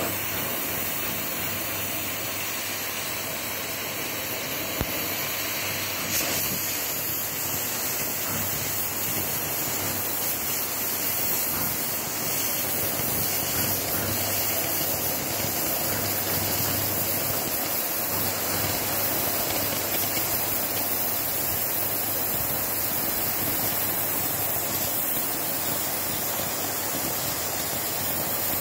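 Oxy-fuel cutting torch hissing steadily as its jet cuts through steel plate.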